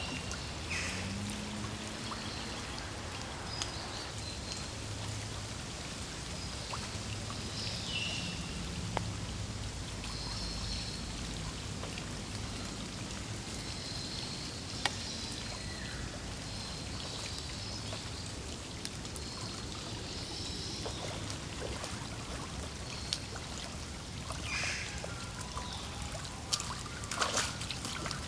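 Heavy rain falling steadily onto a pond and the surrounding leaves: a dense, even hiss with scattered sharper drop clicks.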